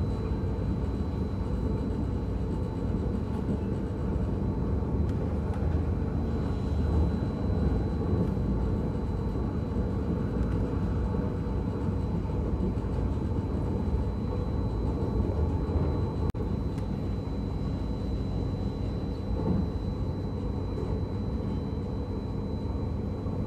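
KLIA Transit ERL electric train running at speed, heard from inside the carriage as a steady low rumble with a faint steady high-pitched tone.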